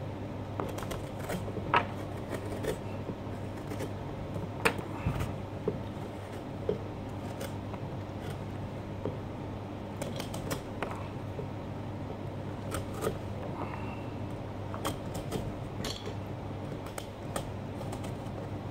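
Small carving knife cutting and scraping pumpkin rind: scattered short scratches and clicks, a few sharper ones, over a steady low hum.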